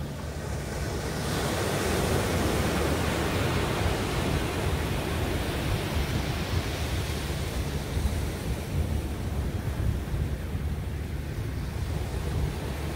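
Ocean surf breaking and washing up a sandy beach, with wind rumbling on the microphone. The wash swells about a second in and slowly eases off.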